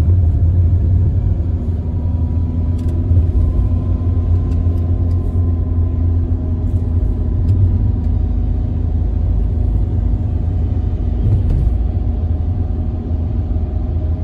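Hyundai i20 driving along a city street, heard from inside the cabin: a steady low rumble of engine and tyres with a faint even hum above it.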